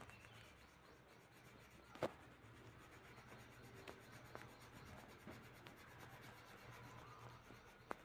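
Faint rubbing of a coloured pencil shading on drawing paper, with one sharp click about two seconds in and a few fainter ticks.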